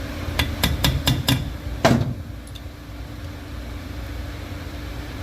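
Sharp metal-on-metal taps, about four a second for about a second, then one heavier strike with a ringing tail about two seconds in, over a steady low hum: tools working on a drilled-out broken-off bolt to extract it.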